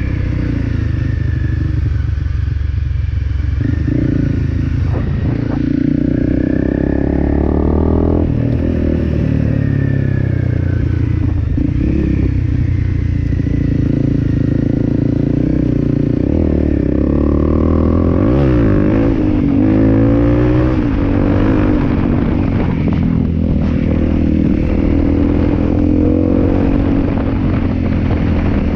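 Honda CRF250L dual-sport motorcycle's single-cylinder four-stroke engine running as it is ridden, the revs sweeping up and down with the throttle and gear changes about two-thirds of the way through. Rattles and knocks from the bike over the bumpy dirt road come through in the later part.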